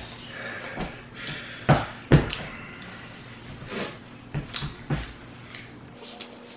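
Chicken wings being eaten at a table: scattered knocks and taps of hands and food against the tabletop and cardboard takeout boxes, the loudest two close together about two seconds in, with a few lighter ones later.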